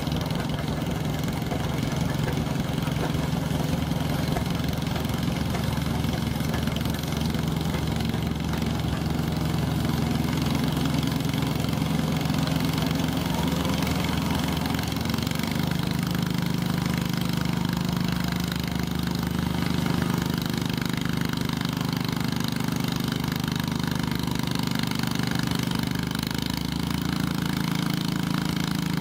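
Cub Cadet 108 garden tractor's engine running hard under load while pulling a weight-transfer sled. Its engine note changes about halfway through and then runs on steadily.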